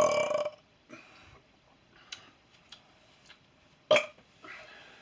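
A man's long, loud burp, with a strong steady pitch, ending about half a second in. A few faint clicks follow, then one sharp click just before four seconds and a faint hiss.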